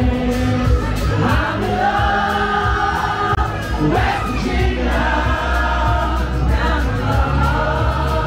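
Live band music from a duo: a woman's lead vocal and a man singing with acoustic guitar over a steady bass beat, with several voices singing together in a singalong.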